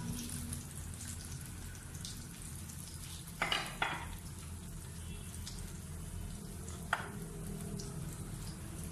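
Batter-coated chicken patties frying in hot oil in a pan: a steady sizzle, with a few brief sharp clicks, twice about three and a half seconds in and once near seven seconds.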